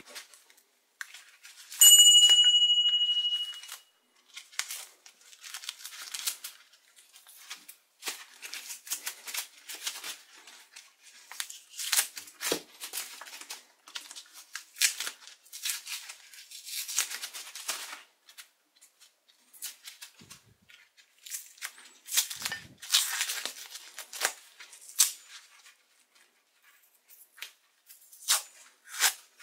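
A metal piece rings out once, clear and bright, about two seconds in, fading away over about two seconds. After it come scattered light scrapes, rustles and clicks of hand work on a metal tool.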